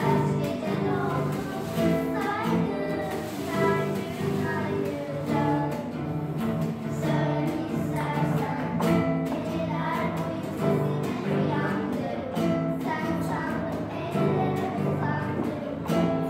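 Young girls singing a song together with instrumental accompaniment, the voices carrying the melody over steady, rhythmic low notes.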